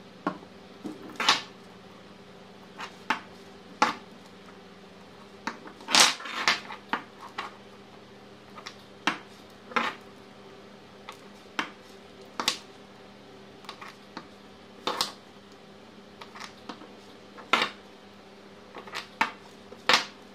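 Metal-cased 18650 lithium-ion cells clicking and clinking as they are picked up, set down on a wooden desk and knocked against other cells: irregular sharp clicks about once a second, the loudest about six seconds in. A faint steady hum lies underneath.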